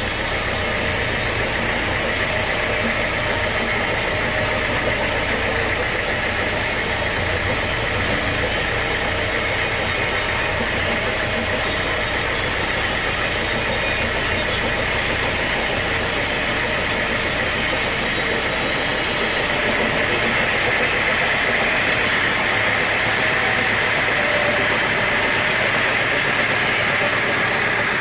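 Sawmill machinery running steadily with a constant engine-like drone and hiss. About two-thirds of the way through, the high hiss drops away and the sound shifts.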